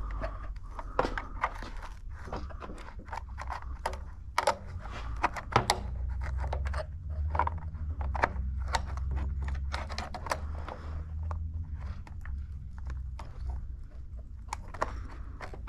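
Irregular small clicks and scrapes of hands working wires back onto the terminals of a new electric water heater thermostat, over a steady low rumble.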